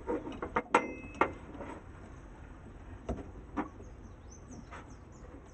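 Small clicks and taps from handling a starter motor's carbon brushes and brush holder while they are fitted: several in quick succession in the first second and a half, then a few scattered ones. Birds chirp faintly near the end.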